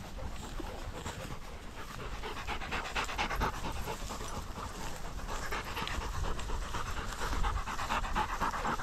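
Dogs panting hard close by in quick, rhythmic breaths, growing louder about two and a half seconds in.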